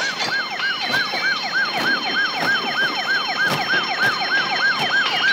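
Alarm siren yelping fast, its pitch rising and falling about four times a second, with a steady high ringing above it.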